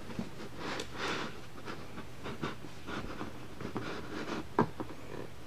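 Thick cardboard board-book pages being opened and pressed flat by gloved hands: a run of soft, irregular rustles and scrapes, with a sharper knock about four and a half seconds in.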